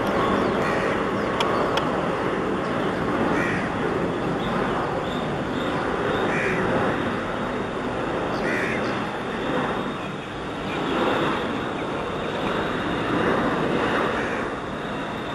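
Crows cawing several times, each caw short and separate, over a steady rush of jet engine noise from a Boeing 747 on final approach with its gear down.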